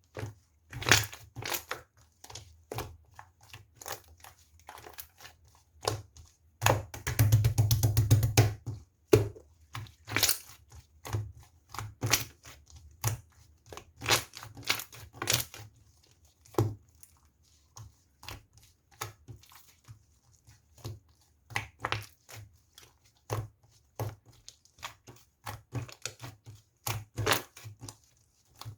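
Slime being squeezed and poked, giving irregular crackling clicks and pops, with a dense run of rapid crackles about seven seconds in.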